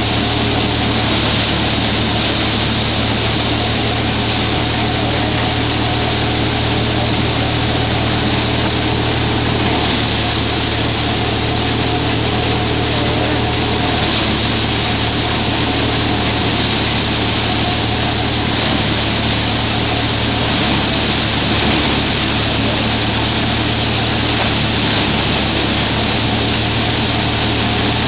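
A tractor-driven Ravindra paddy thresher running steadily under load as rice straw is fed into it. A constant low engine drone sits under the rushing of the threshing drum and blower fan.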